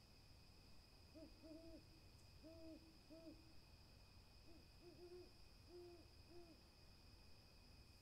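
An owl hooting faintly: two runs of short, low hoots, about five in each, the first starting about a second in and the second about halfway through.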